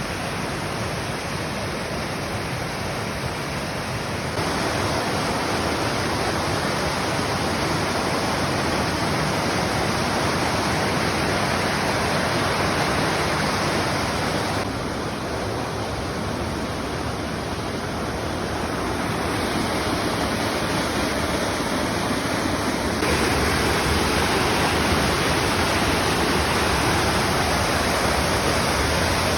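Waterfall rushing as a steady, dense roar of water. The sound jumps abruptly in level and character a few times, as if cut between different spots.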